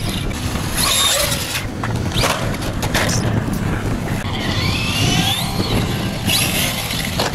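Electric RC truck driven hard on concrete: its motor whine rising and falling as the throttle is worked, over tyre noise, with several sharp knocks as the truck hits and lands on the concrete.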